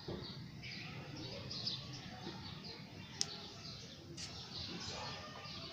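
Small birds chirping: a steady run of short, high chirps, with one sharp click about three seconds in.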